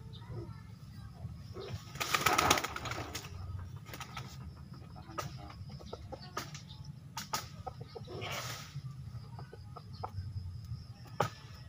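Fighting rooster flapping its wings in two bursts, about two seconds in and again about eight seconds in, as it keeps its balance on a swinging rope-hung perch during swing training. A few short sharp clicks come between the bursts.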